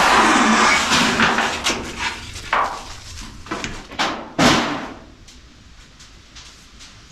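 A loud rushing noise at first, then a few separate knocks and bangs, the loudest about four and a half seconds in.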